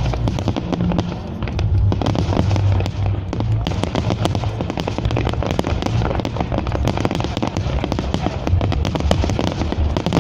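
Dense, continuous barrage of aerial firework shells bursting and crackling, many reports a second over a deep rumble, typical of a fireworks finale.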